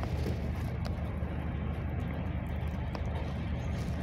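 Steady low rumble of a GAZ Next minibus's engine idling while the bus stands still, heard from inside the passenger cabin, with a couple of faint clicks.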